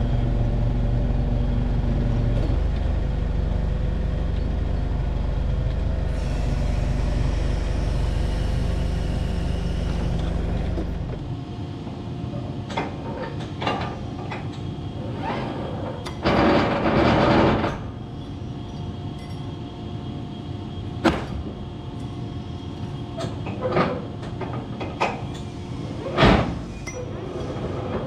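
An engine running steadily, then shut off about eleven seconds in, followed by scattered knocks and a short clatter.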